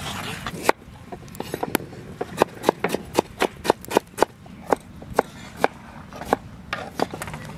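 Kitchen knife slicing tomatoes on a chopping board: a quick, uneven string of sharp knocks, about three a second, starting about a second in.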